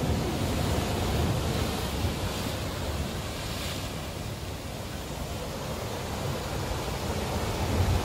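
Ocean surf breaking and washing over a rocky shore: a steady rushing of foam and water, easing a little midway and building again near the end as another wave comes in.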